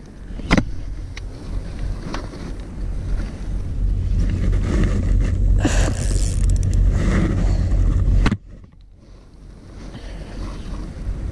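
Wind rumbling on the camera microphone, mixed with knocks and rubbing as the angler's sleeve and arm work the reel against the camera. The rumble drops off sharply about eight seconds in, then builds again.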